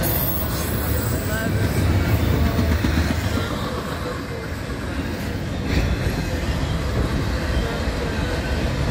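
Double-stack intermodal well cars rolling past close by: a steady rumble of steel wheels on the rails.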